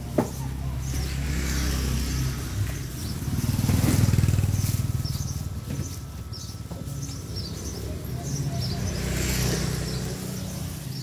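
Small motorbike engines running, the sound swelling loudest about four seconds in and again near nine seconds as motor scooters pass along the road.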